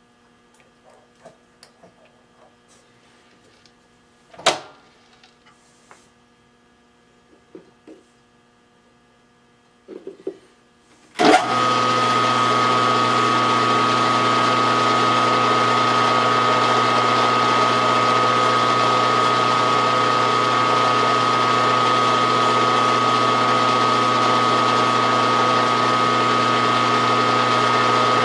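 Light clicks and taps of tools being handled, then about eleven seconds in a drill press starts abruptly and runs steadily, with a high whine over a low hum, as a twist drill bores through a metal plate clamped in a vise.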